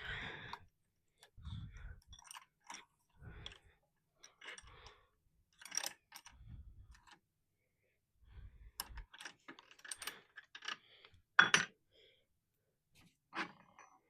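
Scattered clicks, knocks and rattles of tools and parts being handled, with a few dull thumps in the first nine seconds and a sharp click about eleven and a half seconds in. The band saw is not running.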